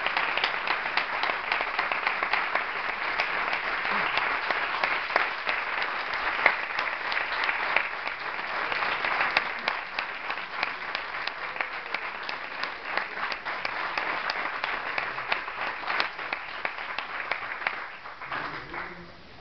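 Audience applauding, dense steady clapping that thins out and dies away near the end.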